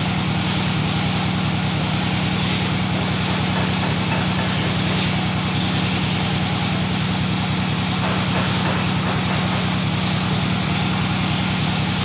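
Steady motor-like drone with a strong low hum and fast, even pulsing, unchanging in level.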